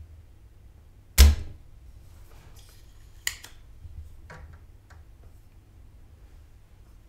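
Spring-loaded desoldering pump (solder sucker) firing once about a second in: a sharp snap with a low thud as its plunger shoots back to suck molten solder from a capacitor's through-hole joint. A few fainter clicks follow.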